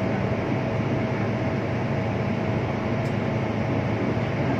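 Steady road and engine rumble heard from inside a moving car, with a faint constant whine above it.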